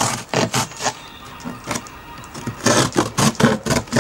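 A knife sawing through the side of a corrugated cardboard box in quick rasping strokes. There is a short pause a second or so in, then rapid strokes again near the end.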